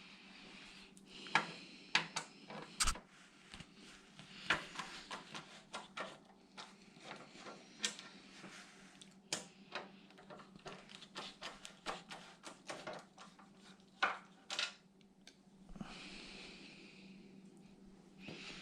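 Irregular clicks, taps and knocks of computer parts and screws being handled and fitted inside a PC case, over a low steady hum.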